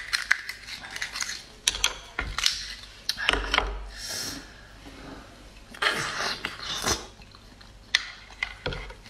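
Oyster knife prying open a raw oyster: a run of sharp clicks and scrapes of blade on shell in the first few seconds, then a few longer scraping sounds of shell handling.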